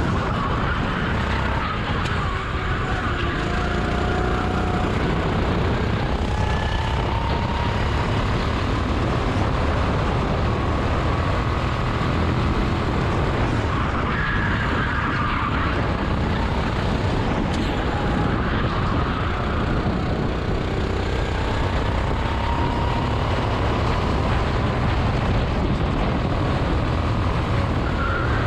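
Go-kart engine running hard at speed, its pitch rising and falling through the corners, under a steady rush of wind noise.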